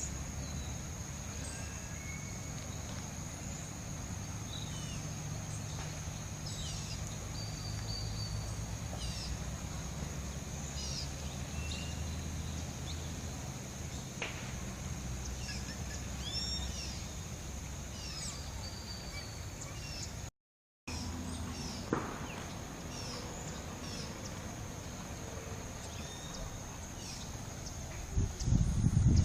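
Outdoor ambience of many birds chirping over a steady high insect drone and a low rumble. The sound cuts out for half a second about two-thirds through, and loud low thumps come near the end.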